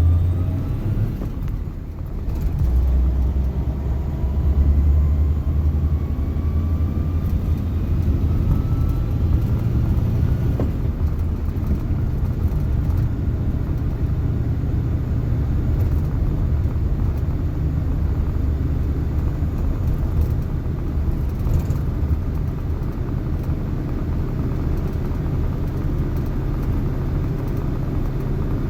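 Suzuki JA71 Jimny on the move, with a steady low rumble from the engine and drivetrain. Over the first ten seconds or so a faint whine rises in pitch, the sound the owner puts down to a failing transmission bearing.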